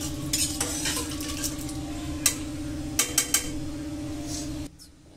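Steel ladle stirring thick dal in a stainless steel pressure cooker, clinking and scraping against the pot several times over a steady hum. The sound cuts off suddenly shortly before the end.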